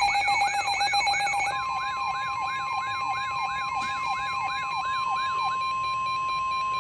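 Emergency alert tones: a siren-like sweep falling over and over, about two and a half times a second, over steady alarm tones. About a second and a half in a single steady tone near 1050 Hz, the weather-radio warning alarm tone, joins and carries on after the sweeps stop near the end.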